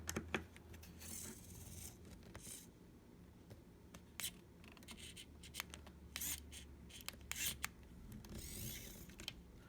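Quiet handling noises from a small cordless precision screwdriver worked against a screw: scattered light clicks and short bouts of rubbing and scratching.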